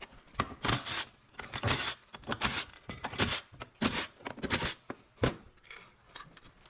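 Ratchet wrench clicking in repeated short strokes, about two a second, as the bolts of a 48RE automatic transmission's front pump are backed out.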